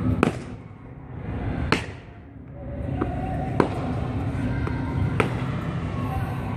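Cadets' drill shoes stamping on a paved parade square during foot drill: five sharp strikes spread over about five seconds, over a steady low background hum.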